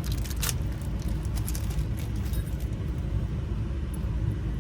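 Steady low rumble, with a few light clicks in the first second and a half as small metal lock parts are handled.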